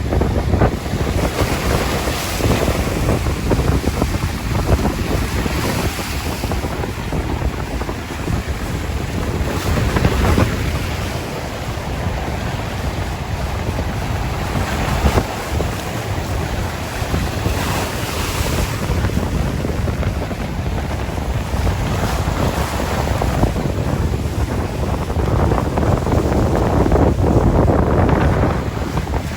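Sea waves washing on a shore, the surf rising and easing every few seconds, with wind rumbling on the microphone.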